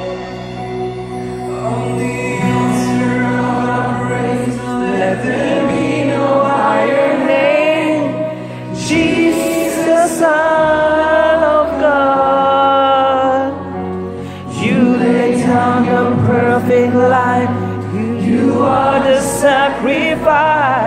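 Live Christian worship song: voices singing slow phrases over sustained chords, with brief pauses between lines.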